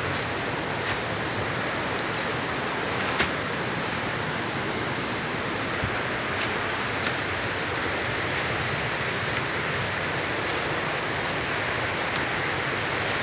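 Steady rushing of a creek's water, an even hiss with no breaks, with a few faint scattered crackles of footsteps in dry leaf litter.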